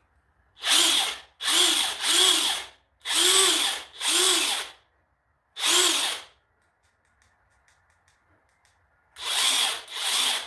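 DeWalt DCF900B 20V brushless 1/2-inch high-torque cordless impact wrench run with no socket or load, in about eight short trigger bursts, each spinning up and back down. Six come quickly in the first six seconds, then after a pause two more near the end.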